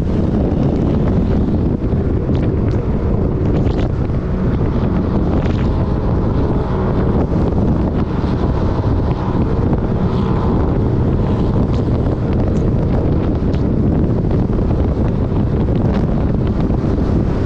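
Wind buffeting a camera mounted on a side-by-side UTV driving fast over sand dunes, loud and steady, with the vehicle's engine running underneath.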